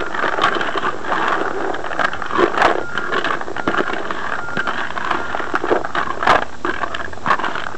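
Carp groundbait of boilies, pellets and cooked corn and wheat being stirred in a plastic bucket: a continuous rattling scrape of hard particles, with sharper clicks now and then.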